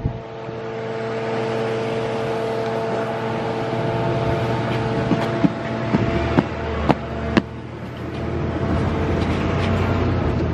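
A parked car's engine idling with a steady hum, its doors open. In the middle, a quick series of five sharp clicks and knocks from the doors being handled.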